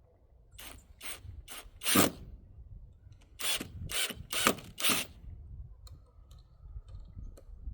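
A tool working on the door framing in short strokes: eight brief noisy bursts in two runs of four, about two a second.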